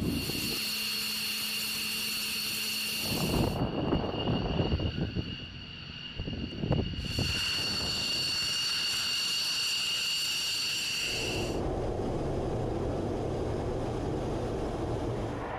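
F-15 Eagle twin turbofan engines running on the ground, a high steady whine over a rushing noise. The sound comes in several short clips that change abruptly. Near the end the whine gives way to a lower steady rumble.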